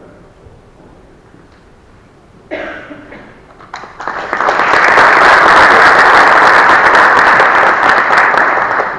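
Audience applause in a large hall: a quiet stretch, then from about four seconds in a crowd starts clapping, swells quickly and holds loud, beginning to fade near the end.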